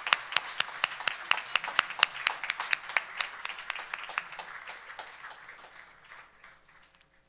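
Audience applauding, with some sharp, close claps standing out; the clapping thins and dies away over the last two seconds.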